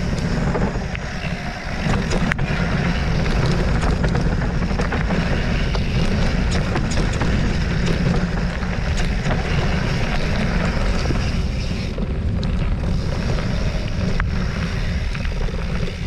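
Wind buffeting the microphone: a steady low rumble with a few faint clicks, dipping briefly about a second in.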